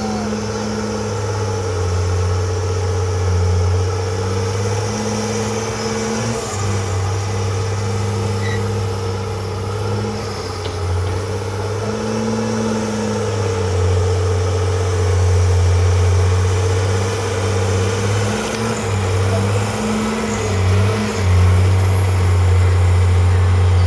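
Diesel engine of heavy earthmoving machinery running continuously, its low hum shifting up and down in pitch several times as the load changes.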